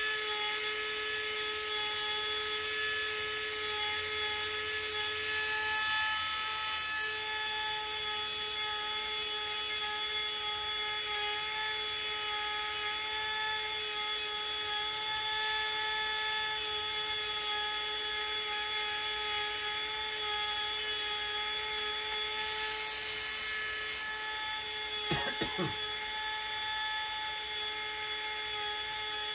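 Small high-speed electric drill running steadily with a high whine, as in drilling or shaping Tulsi wood beads; its pitch dips briefly near the end.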